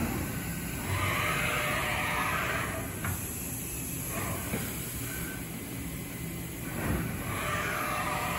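MultiCam 3000 CNC router working through an automatic tool change to pick up a quarter-inch bit. Its drives run in two spells, about a second in and again near the end, over a steady low machine hum, with a sharp click about three seconds in and a thump about seven seconds in.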